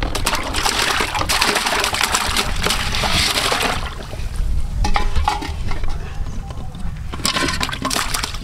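Dressed quail tipped from a metal bowl into a large pot of water, splashing and sloshing for about four seconds. It goes quieter, then there is a second splashing pour near the end.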